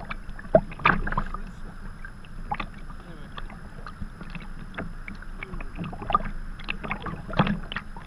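Sea kayak being paddled: irregular splashes and drips from the paddle blades and water slapping against the hull, the loudest splash near the end.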